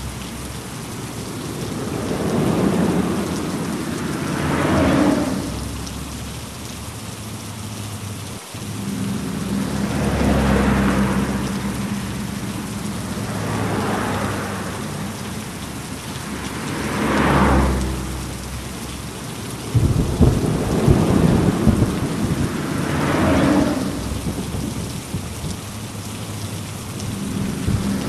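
Steady heavy rain with rolling rumbles of thunder that swell and fade every few seconds. A sharper, crackling thunderclap comes about twenty seconds in.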